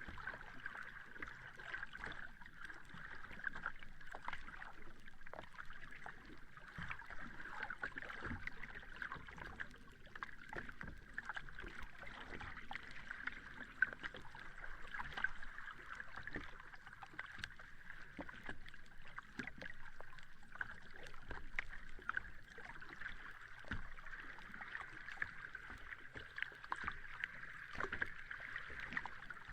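Sea water lapping at the shore: a steady fizzing wash full of small splashes and crackles, with no big breaking wave.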